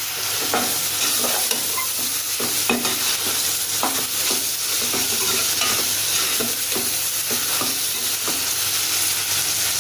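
Onions, green chillies and mint sizzling in hot oil in a pan while being stirred. The spoon knocks and scrapes against the pan about once a second.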